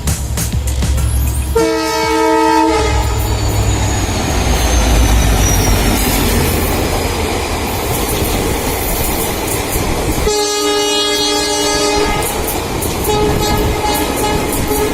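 Express passenger train running through a station at speed, its locomotive horn sounding three times over the steady rumble and clatter of wheels and coaches: a blast about a second and a half in, another at around ten seconds, and a fainter one near the end.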